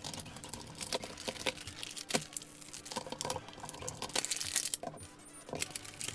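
Clear plastic blister packaging crinkling and clicking as an action figure and its plastic weapon sprue are worked out of the tray and bag by hand. The sound is a string of irregular small crackles and taps.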